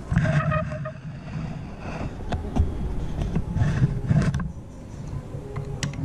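Handling noise as a USB charging cable is plugged into a multi-port USB charger adapter: a low rustle with several sharp plastic clicks, and a brief tone near the start.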